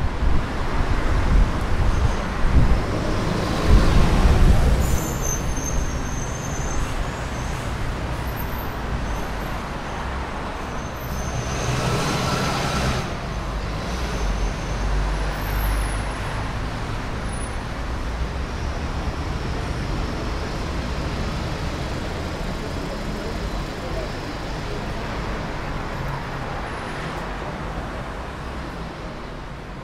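Street traffic on a city avenue: vehicles passing, with a heavy low rumble in the first few seconds and a brief hiss about twelve seconds in, then a steadier traffic wash that slowly fades.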